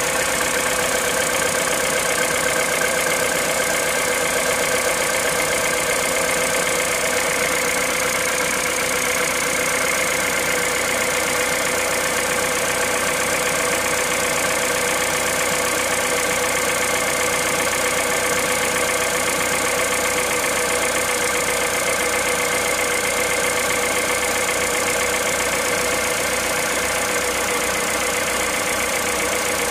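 Car engine idling from a cold start, running steadily and evenly with a constant high-pitched tone over it. This is the noise the owner hears when the engine is cold.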